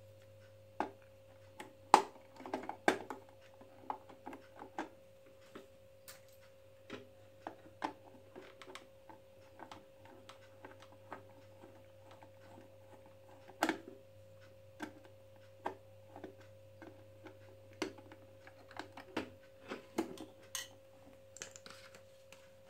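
Irregular small clicks, taps and knocks of hard plastic as a screwdriver unscrews the battery-compartment cover of a plastic toy ATM savings bank and the cover is worked loose and lifted off. The loudest knocks come about two and three seconds in, with another sharp one about halfway through.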